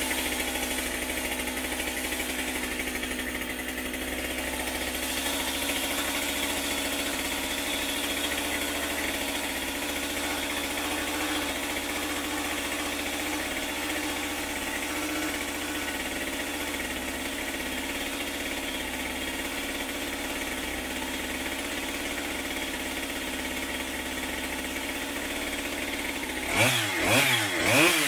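Two-stroke chainsaw engine idling steadily, then revved up and down several times in quick throttle blips near the end.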